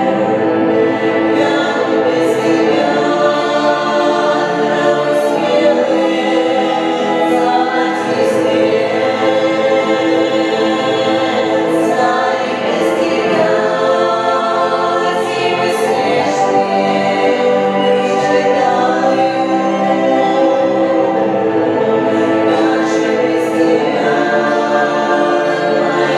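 Female vocal trio singing a song together into microphones, the voices blended like a small choir and running on without a pause.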